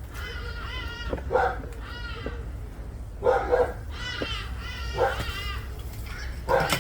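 An animal crying out repeatedly, about five short wavering calls in a few seconds, over a steady low rumble.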